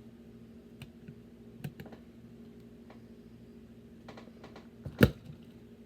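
Lego Technic plastic parts clicking and tapping as they are handled and pressed together: a scattering of small clicks, then one louder snap about five seconds in. A faint steady hum runs underneath.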